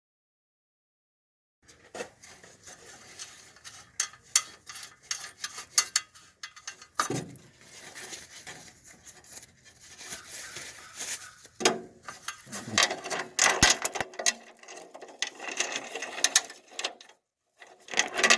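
Hand tools clicking and clanking on metal parts in a car's engine bay: irregular clicks, knocks and rattles, starting after a second or two of silence.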